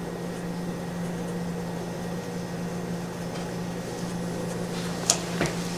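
Steady low room hum, like a fan or appliance, with a sharp tap about five seconds in and a lighter one just after.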